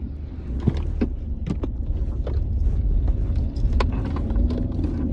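Road and engine rumble inside a car's cabin as it climbs a mountain road, steady and low, with scattered sharp clicks and knocks from inside the car.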